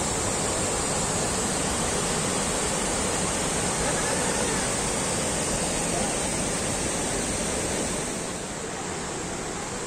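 Pykara Falls' white water rushing over broad rock cascades: a steady, even rush that turns a little quieter about eight seconds in.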